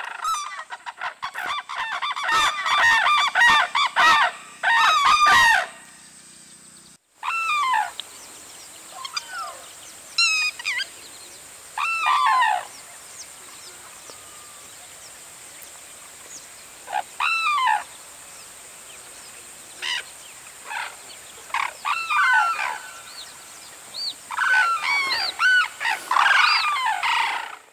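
Sarus cranes calling: a loud, dense chorus of calls for the first five seconds, each call falling in pitch. After a short break about seven seconds in, single calls come scattered over a steady hiss, building into another dense chorus near the end.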